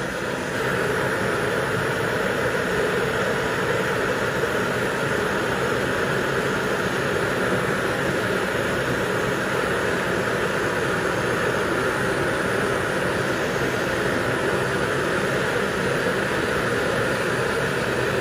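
Hand-held gas torch flame burning at full blast with a steady, loud hiss.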